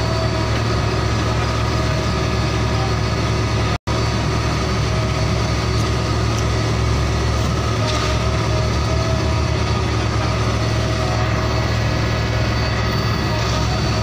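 Heavy truck engine idling steadily, cutting out for an instant about four seconds in.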